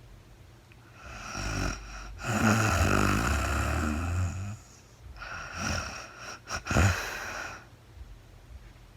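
A sleeping woman snoring: a breath about a second in, then one long, loud, low snore lasting about two seconds. It is followed by a second, noisier breath with two short sharp catches in it.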